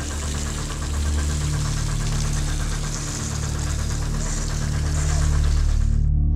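A boat engine running steadily, with hiss of water, under slow background music. The engine and water noise cut off abruptly near the end, while the sustained music carries on.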